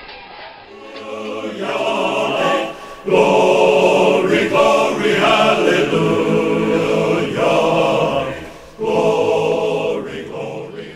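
A choir singing a recorded song in long phrases, fading in over the first second or two, with brief breaks about three and nine seconds in.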